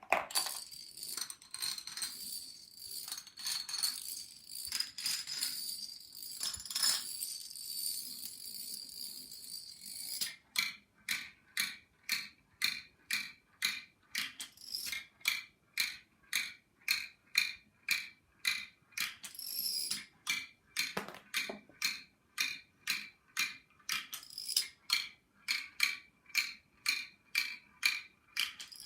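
Dominoes toppling in a chain reaction: a dense clatter of tiles striking each other for about ten seconds, then a steady run of short clattering bursts about twice a second.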